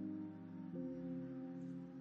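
Quiet instrumental background music with long held chords; the chord changes about three-quarters of a second in.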